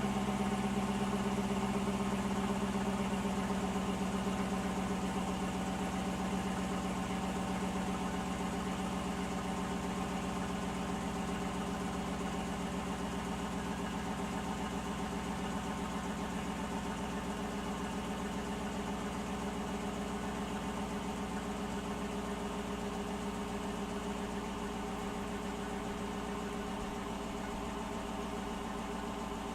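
Stock 2018 Dodge Durango R/T's 5.7-litre HEMI V8 idling steadily through the stock exhaust after a cold start, growing gradually slightly quieter as the idle settles.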